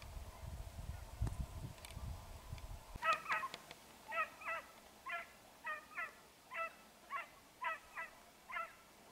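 Geese honking: short calls, often in pairs, repeating about twice a second, beginning about three seconds in. Before the honking there is a low rumble of wind on the microphone.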